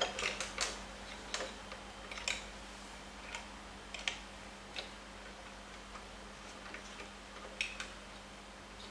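Scattered light clicks and taps, about ten at irregular intervals, from hands working the CPU cooler's fastenings inside a desktop PC case.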